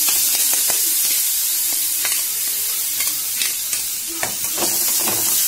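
Hot oil in an aluminium kadhai sizzling steadily as damp soaked poha is tipped in from a steel mesh strainer. A few short scrapes and knocks come from a spoon working the poha out of the strainer, several of them after about four seconds.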